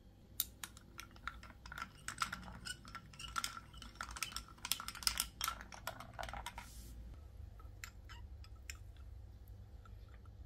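Rapid light clicking and tapping of kitchen utensils and dishes, busiest for the first seven seconds, then a few scattered taps.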